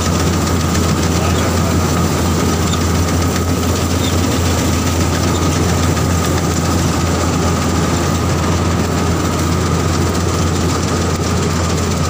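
Diesel combine harvester running steadily as its header cuts standing wheat: a loud, even machine noise with a strong low drone and a thin steady whine above it.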